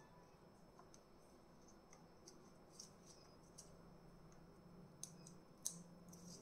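Near silence with a few faint clicks and rustles from hands handling deflated latex balloons, the sharpest two a little after five seconds in.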